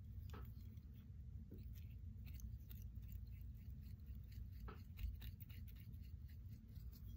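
Faint, scattered small clicks and rustles of hand tying: thread being wrapped from a bobbin around a jig's hook shank to tie in a clump of synthetic fish hair, over a low steady room hum.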